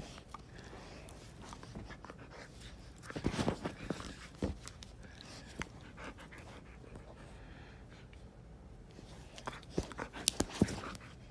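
Siberian husky panting close to the microphone while play-wrestling, with louder bursts of scuffling and sharp knocks about three seconds in and again near the end.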